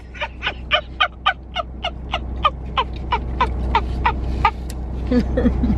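A woman laughing hard in a fast, staccato run of short 'ha' pulses, about four a second, each falling in pitch. It goes on for over four seconds, then eases into looser laughing near the end.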